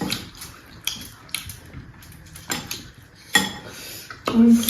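Eating at a close-miked table: scattered short clicks and clinks of plates and utensils, with a louder knock a little after three seconds.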